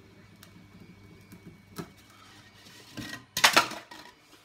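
Two 3D printers humming steadily in the background, with a small click a little under two seconds in. About three and a half seconds in comes a loud, brief clatter and scuffing as the cut Styrodur foam pieces are taken off the hot-wire cutter's table.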